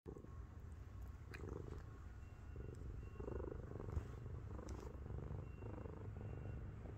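A heavy 7.5 kg domestic cat purring steadily, a low pulsing purr that the owner likens to a tank.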